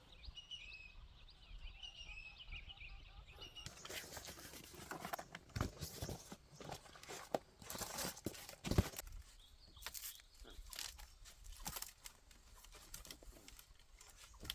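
Faint, irregular crunching and rustling, with faint high bird chirps in the first few seconds before the crunching starts.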